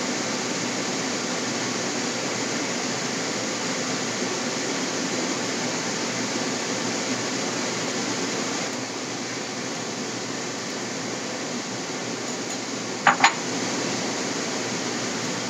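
Steady hiss of a frying pan of glass noodles, kale and chicken simmering in broth. About thirteen seconds in come two sharp clicks in quick succession: the spatula knocking against the pan.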